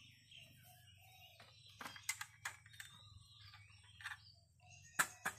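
Faint clicks and taps of a small metal mosquito-coil holder being handled and set down on a wooden block, ending in two sharper knocks near the end. Faint chirping sounds in the background.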